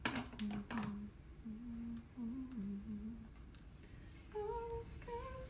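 A woman humming a short tune to herself, low held notes at first, then a few higher notes near the end, with a few light clicks near the start.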